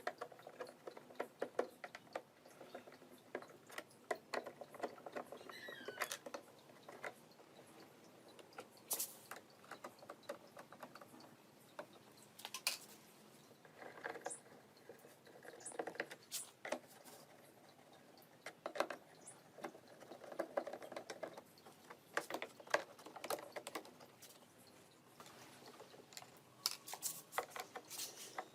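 Irregular light clicks and taps with faint rustling and scraping, the small handling noises of work on small parts.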